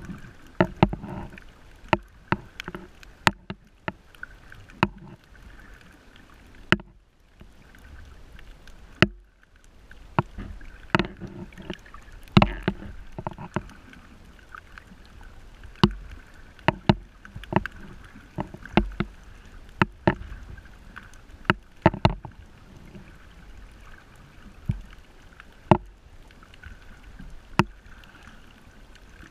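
Underwater sound on a shallow coral reef: sharp clicks and pops at irregular intervals, a few every second or two, over a low rumble of moving water.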